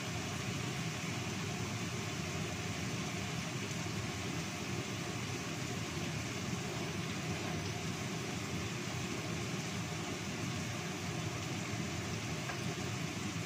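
Ground spice paste sizzling in oil in a wok over a gas burner: an even, unbroken hiss.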